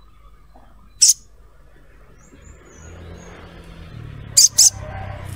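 Olive-backed sunbird giving sharp, very short high chip calls: one about a second in, then two in quick succession near the end. A low rumble grows underneath in the second half.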